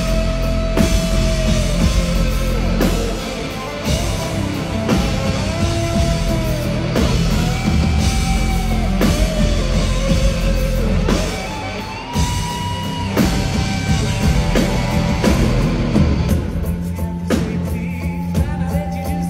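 Amplified live rock band at a soundcheck: a male voice sings long held notes over electric guitar and a drum kit. The drumming drops back near the end, leaving the voice over sustained guitar chords.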